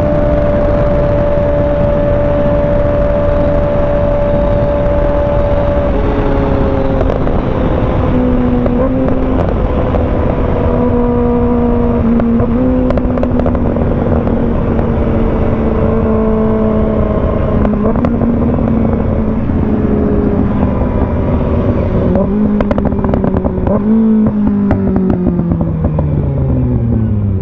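2025 Kawasaki ZX-6R's 636 cc inline-four engine running under way, holding a steady pitch at first. About six seconds in, its pitch steps down, then wavers through several throttle changes, and it falls steadily near the end as the bike slows.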